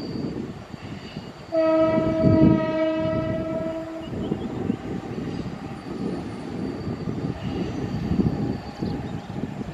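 Mumbai suburban EMU local train running with a low rumble. About a second and a half in, a train horn sounds one steady blast lasting about two and a half seconds.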